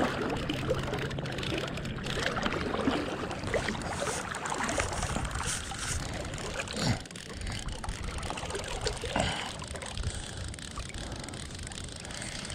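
Shallow river water splashing and rushing close to the microphone, with jacket fabric brushing over it and scattered knocks, as a small hooked trout is reeled in and landed.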